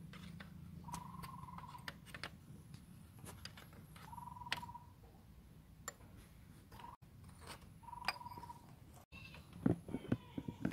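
A ratcheting spanner works the belt-tensioner bolt on a Tata Indica's accessory drive, slackening the AC compressor belt. Three short, buzzing ratchet runs come a few seconds apart, among faint metallic clicks.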